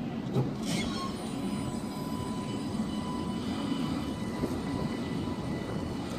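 Alstom Citadis electric tram moving off from a stop: a steady low rumble of wheels on rail, with a steady high electric whine from the traction drive coming in about a second in. There is a brief click near the start.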